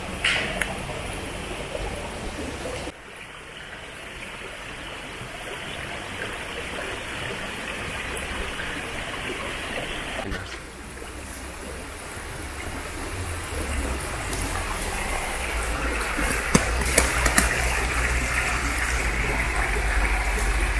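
Steady rushing of a forest stream, its level shifting from shot to shot, with a few light clicks in the last few seconds.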